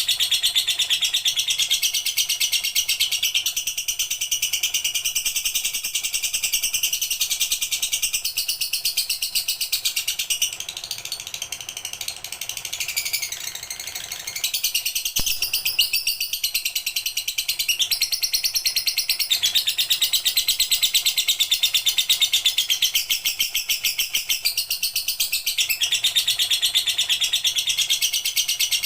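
Lovebird singing a long, fast, high-pitched chattering song. It runs almost without a break, softens for a few seconds around the middle, then picks up again at full strength.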